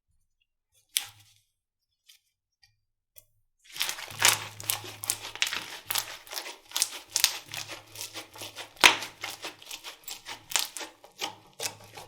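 Slime being squeezed and pressed by hand, making dense, irregular crackling and popping clicks. A single sharp click comes about a second in, and the steady crackling starts just under four seconds in.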